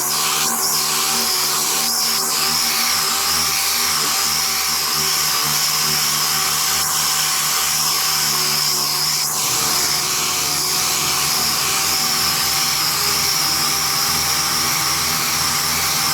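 Six-inch air-powered random orbital sander running steadily while sanding body filler: a constant whine over a hiss of air.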